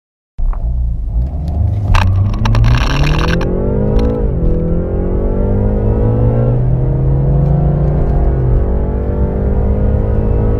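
BMW car engine at full throttle from a standstill, its pitch climbing through the gears and dropping sharply at upshifts about four and six and a half seconds in, with a rushing noise around two to three seconds in.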